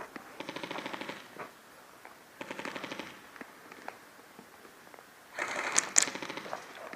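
Airsoft guns firing three short bursts of rapid full-auto fire, the last one loudest, with a few single clicks in between.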